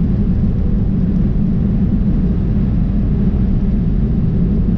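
Semi-truck cruising at highway speed, heard from inside the cab: a steady low drone of engine and road noise.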